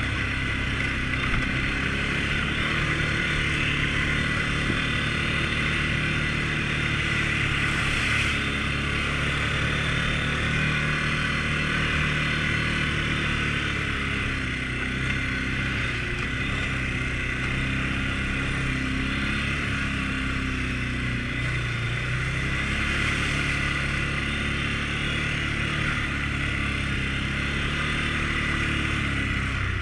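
Can-Am Outlander 450 L ATV's single-cylinder engine running steadily under way on a dirt trail, its pitch rising and falling gently with the throttle.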